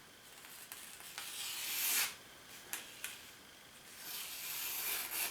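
Knife blade shaving thin curls off a piece of wood: two long scraping strokes, each growing louder and then stopping short, with a few light clicks between them.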